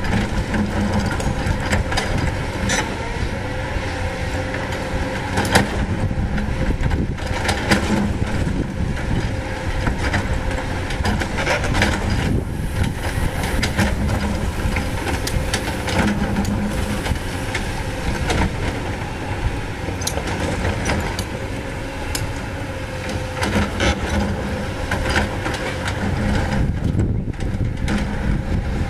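CAT 320D excavator's diesel engine running steadily under a constant whine, with scattered sharp knocks of stone on stone and metal.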